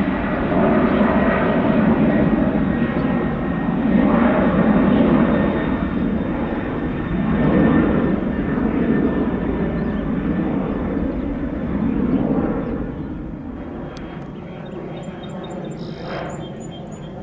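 Jet airliner's engines running as it passes, a rumbling noise with a faint steady high whine that swells a few times and then fades away in the last few seconds.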